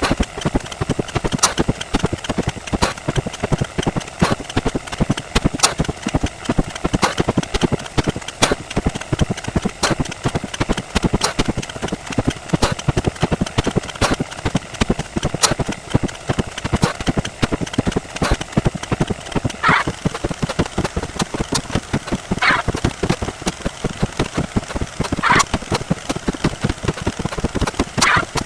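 Counting sound effects played back 64 times faster than normal, merging into a dense, continuous clatter of rapid clicks. A sharper click stands out about every second and a half, and a few short sweeping tones cut through in the second half.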